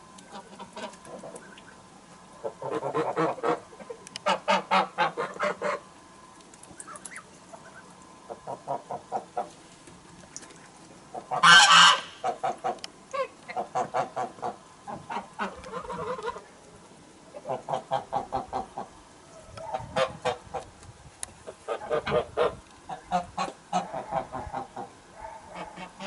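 Geese honking and cackling in repeated bursts of quick calls through the whole stretch, with one much louder honk about eleven seconds in.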